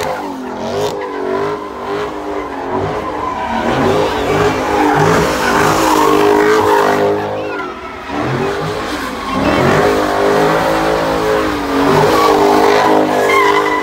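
Car engine revving hard in about three long rising-and-falling surges while the tires spin and squeal, as in a burnout or donuts.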